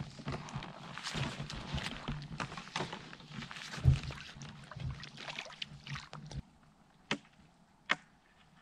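Handling of a folding kayak and its gear at the water's edge: rustling, scraping and knocks against the hull, with one heavy thud about four seconds in. The busy handling stops, then two sharp clicks follow near the end.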